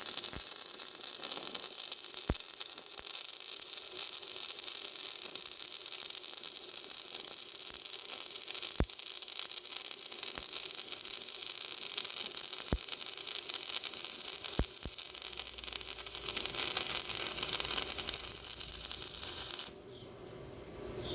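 Stick (SMAW) welding arc crackling and hissing steadily, with a few sharp pops, then stopping abruptly near the end as the arc is broken.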